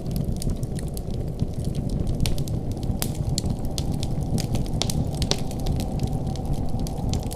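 Wood fire in a fireplace crackling, with frequent irregular sharp pops and snaps over a steady low rumble of the burning.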